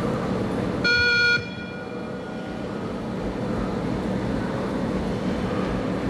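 A single electronic beep from the 20 m shuttle run (beep test) recording, about a second in and about half a second long, marking the end of one 20 m shuttle. A steady background noise runs under it.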